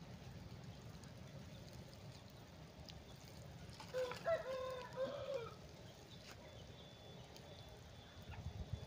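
A rooster crows once, about four seconds in, a call of several linked syllables lasting about a second and a half, over a steady low background rumble.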